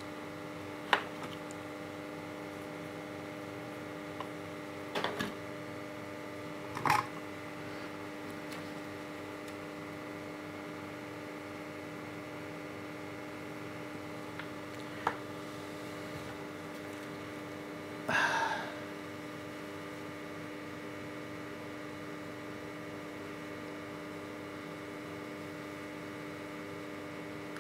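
Steady electrical mains hum, with a handful of small clicks and taps from tools and parts being handled, and a brief rustle about two-thirds of the way through.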